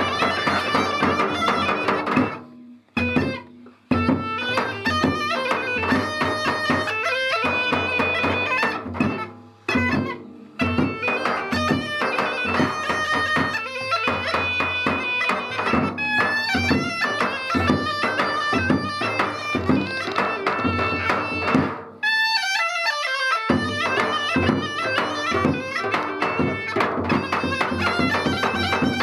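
Bulgarian gaida (goatskin-bag bagpipe) playing a folk tune over its steady drone, with a large double-headed tapan drum and a small frame drum beating along. The music breaks off briefly twice a few seconds in, and about three quarters of the way through a note slides down as the drone drops out for a moment before the tune picks up again.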